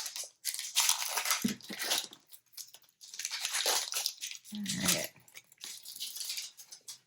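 Plastic packaging around washi tape rolls crinkling and rustling as it is opened and handled, in irregular bursts with short pauses.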